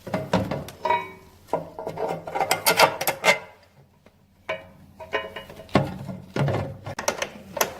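Irregular knocks, clunks and rubbing as parts of a walk-through metal detector are handled and fitted together, the control unit being set onto the front transom.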